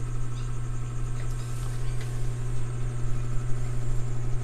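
Steady low electrical hum from an open CRT television running on the repair bench.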